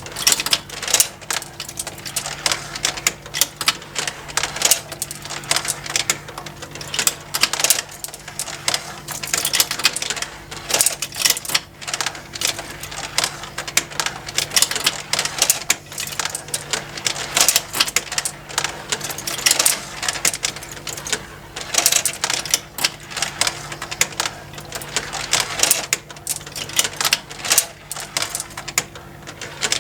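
Battery-powered multi-level plastic marble run: many marbles clicking and rattling along plastic tracks and lifts in an irregular, continuous clatter, over the steady hum of the small motor driving the plastic conveyors.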